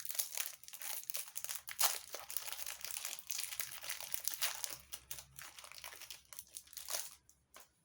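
Foil wrapper of a Pokémon TCG booster pack being crinkled and torn open by hand: uneven crackling that thins out near the end.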